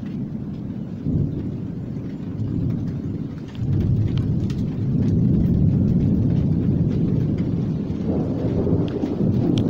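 Thunder rumbling during a violent thunderstorm, swelling sharply about three and a half seconds in and staying loud, over falling rain.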